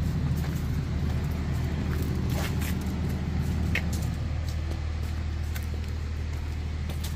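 An engine idling steadily, a low even hum, with a few light clicks a couple of seconds in.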